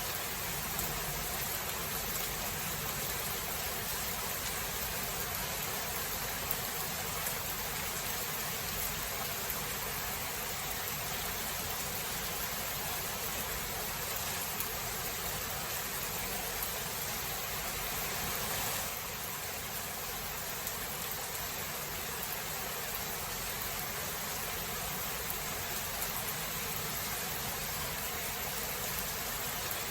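Steady, dense rain hiss from a thunderstorm. It swells slightly and then eases a little about two-thirds of the way through, with no distinct thunderclap.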